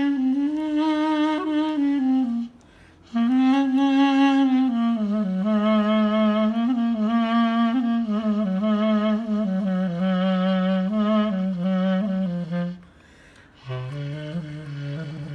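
Solo clarinet playing an unaccompanied Hicaz taksim, a free improvisation in the Hicaz makam. Ornamented, wavering phrases step downward, broken by two short breath pauses, one early and one near the end, after which a lower phrase begins.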